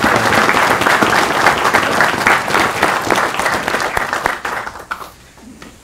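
Audience applauding, a dense clatter of many hands clapping that dies away about five seconds in.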